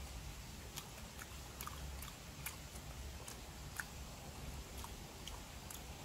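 Close-up chewing of a mouthful of raw horse mackerel sashimi, heard as irregular soft wet clicks and smacks, several a second.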